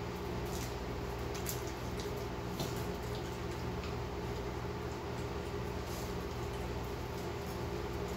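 A person chewing food with the mouth closed, faint wet clicks and smacks scattered through, over a steady low hum of room machinery.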